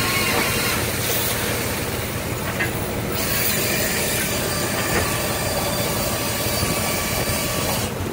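Steady mechanical noise of a fishing boat's deck machinery and engine running, with thin high-pitched tones from the gear, as the hydraulic winch and blocks haul in wire and rope.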